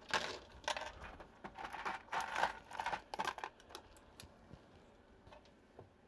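Small plastic and metal keyboard tools, a keycap puller and a switch puller, being picked up and handled on a desk: a busy clatter of clicks and rustling for about three and a half seconds, then a few scattered light clicks.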